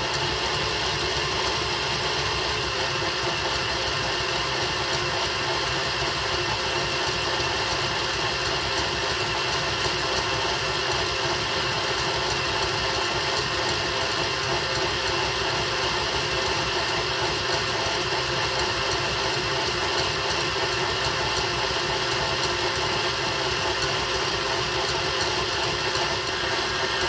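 KitchenAid Artisan stand mixer motor running steadily on a raised speed, its wire whisk whipping cream in the stainless steel bowl as the cream begins to thicken. A steady hum with a few constant whining tones.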